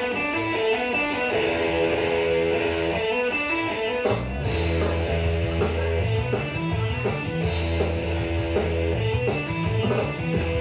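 Rock music led by guitar: held guitar notes at first, with drums and bass coming in about four seconds in.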